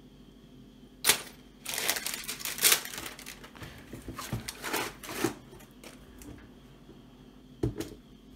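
A sharp click, then tissue wrapping paper in a sneaker box rustling and crinkling for about four seconds as it is handled, and two light knocks near the end.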